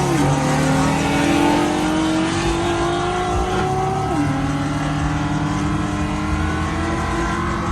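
Car engine pulling hard at full throttle in a race, its pitch climbing steadily, then dropping sharply for an upshift about four seconds in and climbing again.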